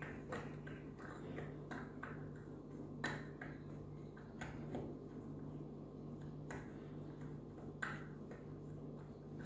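A metal spoon stirring dry ground spices in a small ceramic bowl: light, irregular clinks and scrapes of spoon on bowl. A low steady hum runs underneath.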